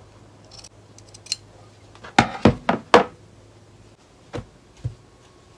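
Fabric shears cutting through knit fabric on a wooden tabletop: faint snips, then a quick run of four knocks about two seconds in, then two softer thumps.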